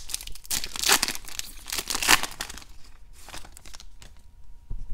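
A trading-card pack's wrapper being torn open and crinkled by hand, busiest over the first couple of seconds, then a shorter rustle a little after three seconds as the cards are slid out.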